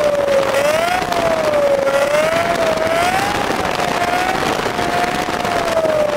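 Air-cooled Volkswagen flat-four engine of a Meyers Manx–style dune buggy running steadily at road speed, its drone wavering slightly, with rough wind buffeting on the microphone in the open cockpit.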